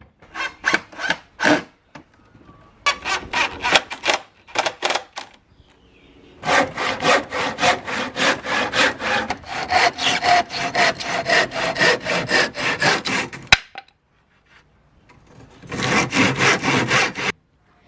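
Handsaw cutting through timber with quick back-and-forth strokes, about four a second, in four runs broken by short pauses.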